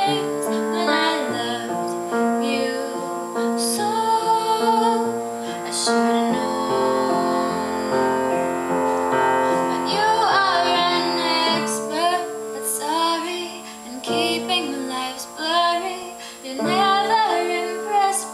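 A woman singing a slow pop ballad over piano accompaniment.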